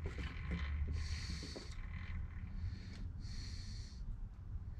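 Steady low hum of a mill-drill's motor running, with a short hiss coming twice, about two seconds apart, and a few faint clicks.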